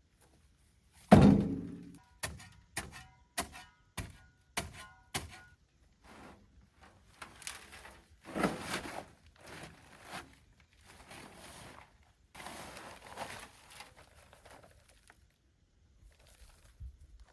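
A heavy thunk, then a run of six hammer blows a little over half a second apart, each with a short metallic ring, followed by several seconds of scraping noise.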